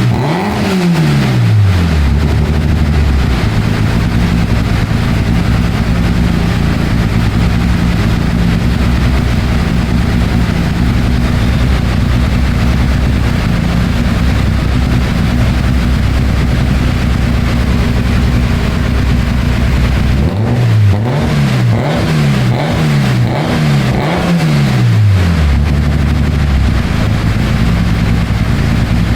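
Toyota Corolla AE82 engine with aggressive 300/294 camshafts running on a dyno: revs fall back to a steady idle at the start, then about two-thirds of the way through it is blipped about five times in quick succession before settling back to idle.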